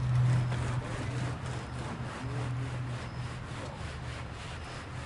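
Repeated scraping strokes of a float or trowel being worked across a freshly poured concrete slab to smooth it, over a steady low hum that is loudest in the first second.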